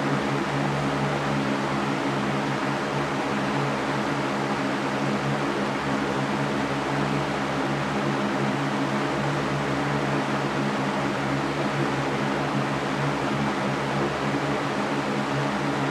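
Baby white-noise track: a steady, unchanging hiss with a low hum underneath, with no breaks or changes.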